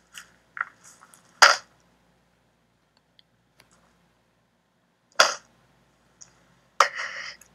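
A woman crying: short, sharp sobbing breaths about a second and a half in and again about five seconds in, then a longer sob near the end.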